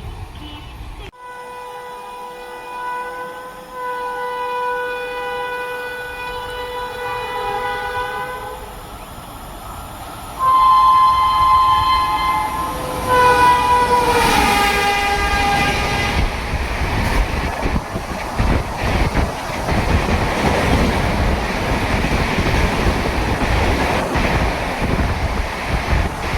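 Train horn sounding a long blast, then two louder blasts starting about 10 and 13 seconds in; the last one drops in pitch as the train passes close by. Then comes the steady rush and rapid rattle of the train's wheels and coaches going past at speed.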